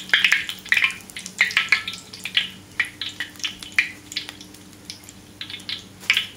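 Egg batter frying in a wok of deep hot oil: irregular crackling and sputtering. It thins out about two-thirds of the way through, then picks up again near the end.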